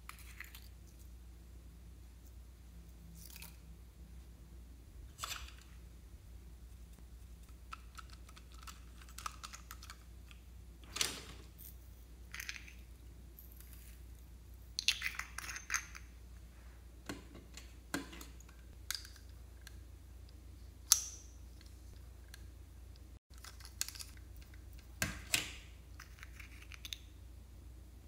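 Small plastic jars of slime add-ins being twisted open, handled and emptied into a glass tray: scattered clicks and taps, some in quick clusters, over a faint low hum.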